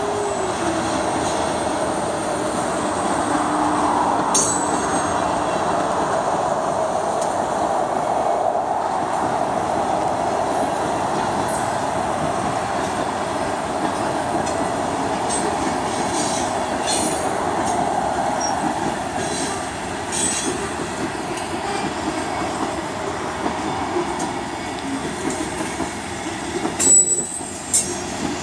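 CSX freight train rolling past, a steady rumble of wheels on rail with a squealing tone in the first few seconds. A couple of sharp knocks near the end are the loudest moment.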